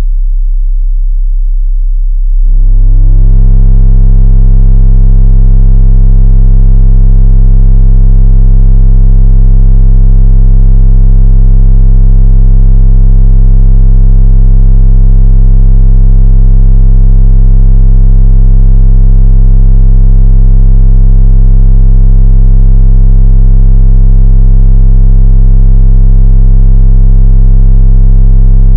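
Infinity 1260w 12-inch subwoofer playing a steady 33 Hz test tone at high power, its cone at extreme excursion. About two seconds in the tone gets louder and turns into a harsh, buzzy sound full of overtones, then holds steady.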